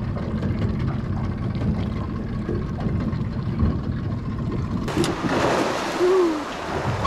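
Low, steady rumble of wind and the small boat. After about five seconds it gives way to a hiss of water splashing as a feeding school of fish breaks the surface, with a couple of short rise-and-fall tones over it.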